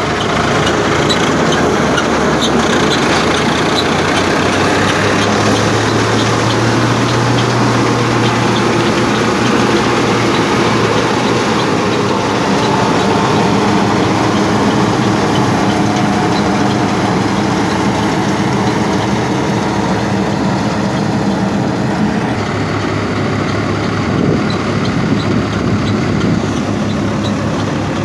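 Tractor engine running steadily while driving a dry-grass collecting machine, a continuous mechanical din of engine and machinery, shifting slightly in tone a little over twenty seconds in.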